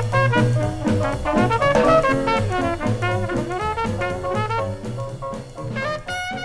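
Upbeat brass-band jazz music with trumpet and trombone over a drum kit.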